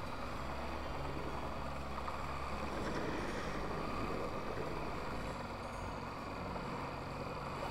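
Wind buffeting the microphone over small waves washing and churning in the shallows at the water's edge, a steady rushing noise with a low rumble in the first few seconds.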